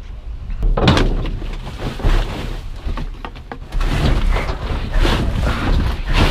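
Trash being rummaged through in a dumpster: irregular knocks, thuds and clatter as objects are shifted and dropped while searching for a missing part.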